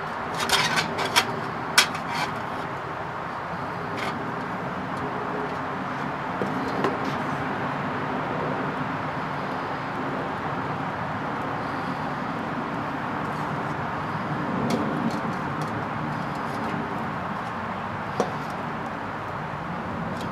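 Sharp metallic clinks and clatter in the first two seconds as a small aluminium camping pot and a folding metal pocket stove are handled, then a few single clicks. Under them runs a steady outdoor background hum.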